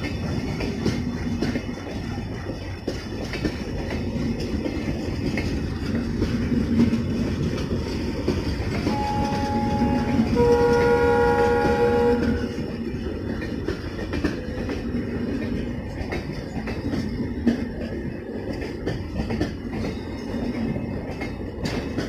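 Coaches of an express train rolling past close by with a steady rumble and wheel clatter. About nine seconds in, the WAP7 electric locomotive's horn gives a short note, then a longer, louder blast of about two seconds.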